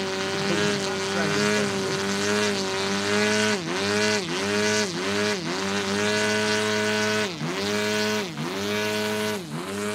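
Turbine engine of a large-scale RC F-16 model jet running with a steady pitched whine. Its pitch drops sharply and recovers about seven times as the throttle is eased back and reopened on the approach with the gear down.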